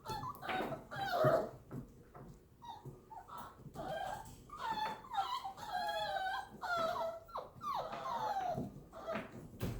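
Seven-week-old Italian Greyhound puppies whining and whimpering: a run of high, wavering cries, coming thickest in the second half.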